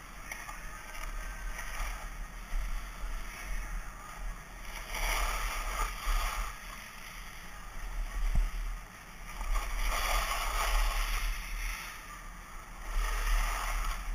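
Skis sliding and scraping over snow, swelling in repeated surges as the skier turns, over a low wind rumble on the action camera's microphone.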